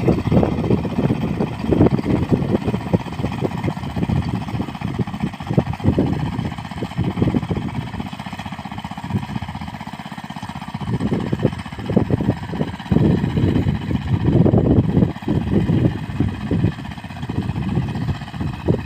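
Small engine running, its pulsing level rising and falling, quieter for a few seconds in the middle.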